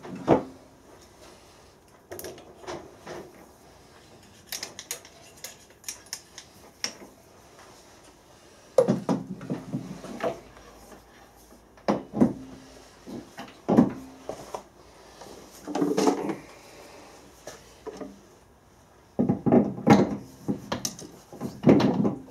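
Metal lathe parts being handled during a chuck change: scattered metallic clicks and clinks, then heavier clanks and knocks as a steel four-jaw chuck is worked onto the spindle nose. The heaviest knocks come in the last few seconds.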